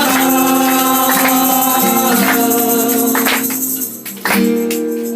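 Music from a song: long held pitched notes with sharp percussive hits. The sound drops briefly about four seconds in, then comes back with a strike.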